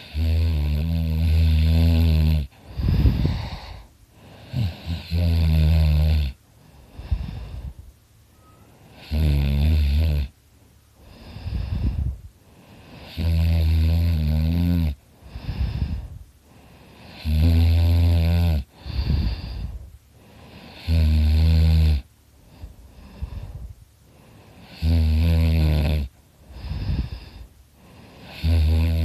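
A sleeping man snoring very loudly: a long, low, pitched snore about every four seconds, eight in all, with softer breathing sounds between.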